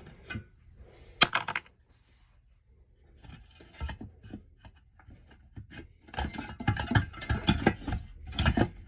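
Metal parts and hand tools being handled on a small engine during teardown. A couple of sharp metallic clinks come near the start, then a near-quiet stretch, then a few seconds of busy clattering and scraping toward the end.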